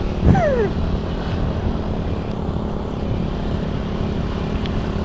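Motorcycle engine running at a steady cruise under wind rush on the rider's microphone, an even drone with no revving. A short falling sound comes just after the start.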